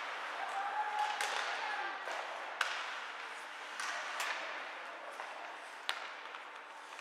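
Ice hockey play: skates scraping on the ice with a few sharp clacks of sticks hitting the puck.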